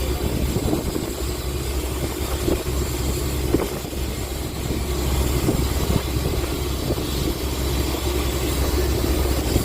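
A fishing boat's engine running steadily with a deep, constant hum, under a steady hiss.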